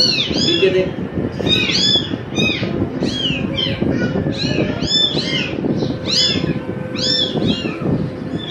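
Newborn kittens, a day or two old, mewing over and over in shrill, arching cries, several at once at about two to three calls a second: hungry kittens crying while being bottle-fed.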